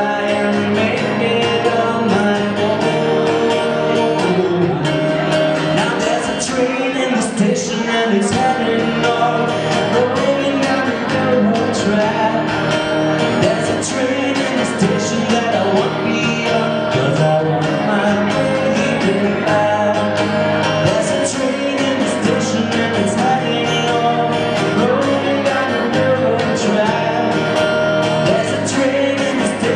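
A man singing live with his own strummed acoustic guitar.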